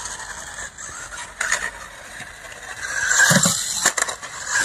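Small RC truck running on rough asphalt: a steady hiss of its tyres and electric drive, with a couple of sharp clicks, about a second and a half in and again near the end.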